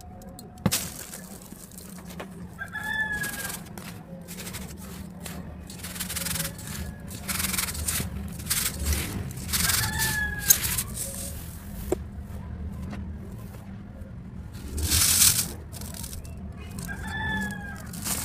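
Dry, dusty cement chunks crumbling and snapping in a run of crackles, played back at double speed, loudest about fifteen seconds in. A rooster crows three times in the background, about seven seconds apart.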